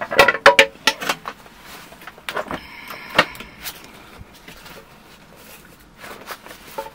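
Knocks and clatter of a Segway Ninebot F40 electric scooter being handled and turned over, loudest in the first second, then scattered single clicks and a quieter stretch.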